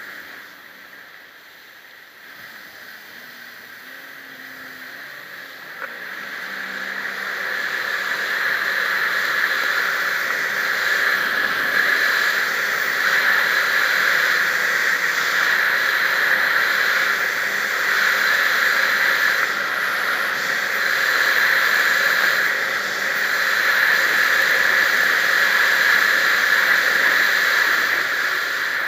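Jet ski engine running with a rush of wind and water. It starts fairly quiet, grows much louder over a few seconds about a fifth of the way in as the ski picks up speed, then holds steady.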